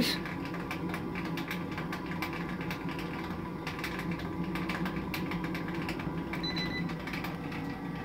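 Gravity-fed wood pellet boiler running under forced draft: the steady hum of its small muffin fan with a rapid, irregular ticking over it.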